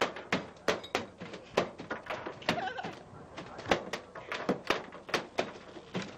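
Irregular knocks and thuds of work on a fibreglass fishing-boat deck around a landed tuna, with a short gliding call-like sound about two and a half seconds in.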